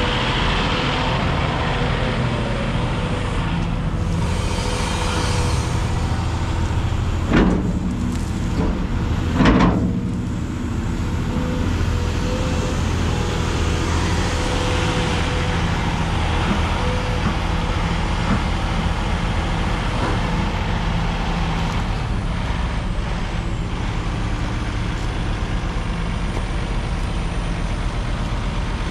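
2013 Cat 349E L excavator's diesel engine running steadily. About seven seconds in there is a short loud burst, and another about two seconds later.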